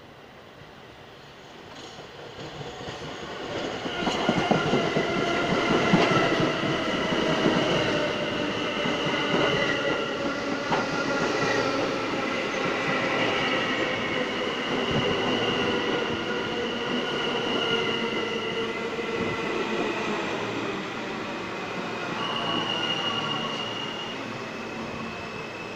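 New York City subway train arriving on the near track and slowing alongside the platform. Its rumble and wheel noise build over the first few seconds to a peak, then hold with several high squealing tones from the wheels and brakes.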